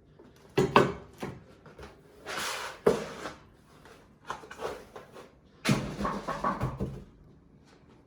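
Handling noise from unpacking: a few sharp knocks and clicks, a short rustle of packaging, then a run of clattering knocks.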